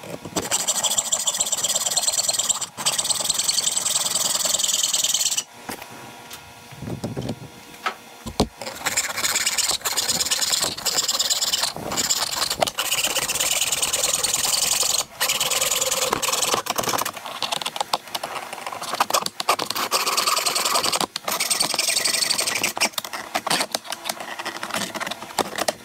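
Hacksaw cutting through a 3/4-inch aluminum tube, a rasping run of back-and-forth strokes. The sawing pauses for a few seconds about five seconds in, then resumes.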